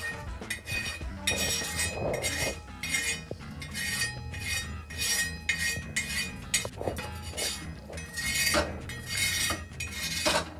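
Knife blade scraping the burnt-on flour layer off a hot cast-iron tawa, metal on metal, in quick repeated strokes of about two or three a second.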